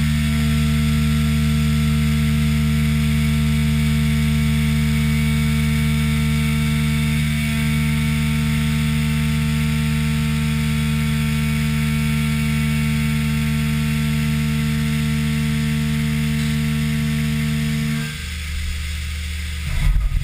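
Haas VF-3SS CNC vertical mill milling aluminum under flood coolant: a steady spindle and cutting whine made of several fixed tones, over the hiss of the coolant spray. About two seconds before the end the tones cut off, and a short loud knock follows near the end.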